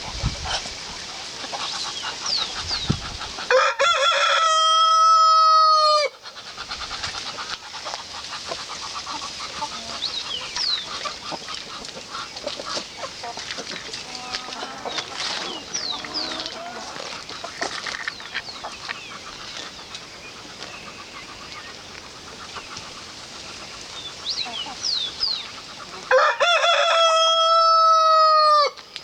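Rooster crowing twice, one long call about four seconds in and another near the end, with quieter animal calls and short high chirps in between.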